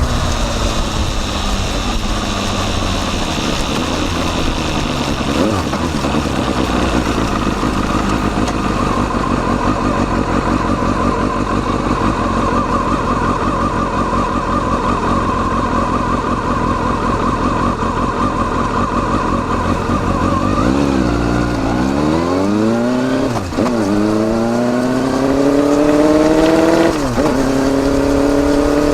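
Kawasaki Balius 250 cc inline-four engine heard through a Wr's muffler with its baffle fitted, recorded right at the silencer. The revs fall at first and then hold steady for about twenty seconds. About twenty seconds in the bike accelerates, the pitch climbing with two brief drops at the gear changes.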